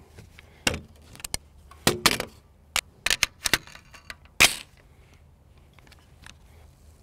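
Sharp metallic clicks and clacks of an AR-15 rifle being handled and loaded with a magazine, about a dozen separate knocks with the loudest about four and a half seconds in.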